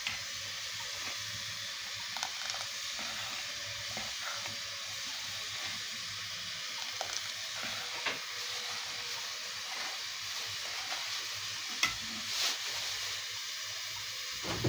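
A spatula stirring milk rice pudding in a stainless-steel pot, with a few light taps and scrapes of the utensil against the pot, over a steady hiss from the gas burner underneath.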